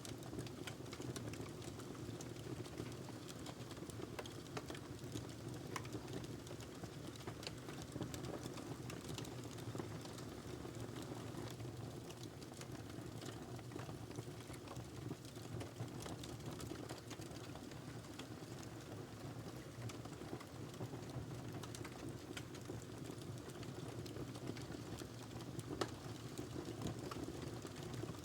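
Wood logs burning in a fireplace: irregular crackles and small pops over a steady low rumble from the fire, with one louder pop near the end.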